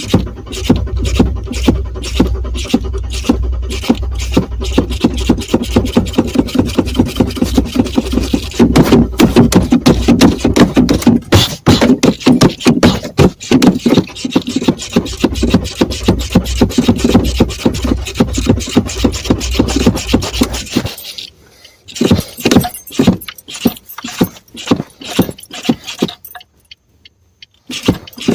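Car engine cranking over on the starter in a fast, even rhythm without catching: a no-start from running out of fuel. The cranking stops for a moment near the end, then starts again.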